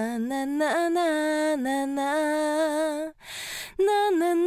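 Solo female voice singing sustained 'na na' syllables with vibrato, taking a sharp breath a little after three seconds in before a higher held note. The vocal is compressed by an API T25 tube compressor feeding an LA-2A.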